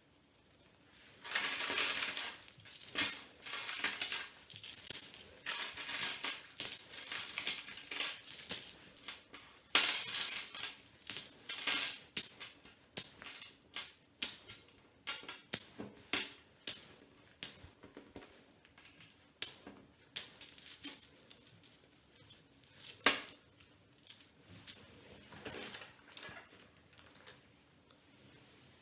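Tantrix Pocket game tiles clattering and clicking against each other and the table: a dense rattle of many tiles about a second in and again around ten seconds, then mostly single sharp clicks, a few a second, as tiles are set down one by one.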